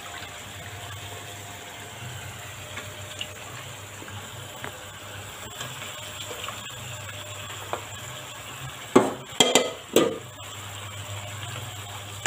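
Pork pieces sizzling and simmering in a nonstick pan as the stock reduces, stirred with a spatula, over a low steady hum. About nine seconds in come three or four loud clattering knocks against the pan.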